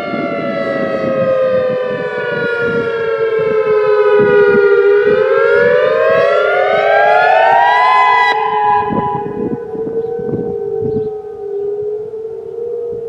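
Federal Signal EOWS 612 electronic outdoor warning siren sounding its wail (attack) signal: the tone slides down, climbs back up, and cuts off abruptly about eight seconds in. Fainter distant warning sirens keep wailing underneath and after it.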